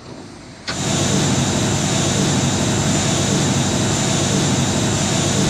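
Jet airliner engine noise: a loud, steady rush with a high whine over it, cutting in abruptly about a second in.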